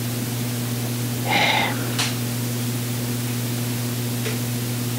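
Steady electrical hum and hiss from the sound system, with a brief squeak about a second and a half in, a sharp click just after, and a faint click near the end.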